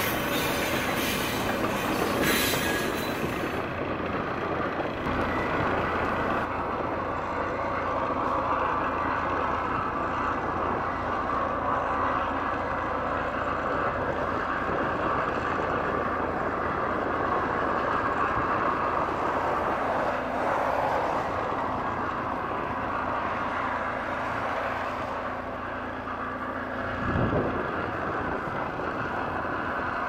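Freight train rolling past: a steady rumble of cars and wheels, with a brief louder swell near the end.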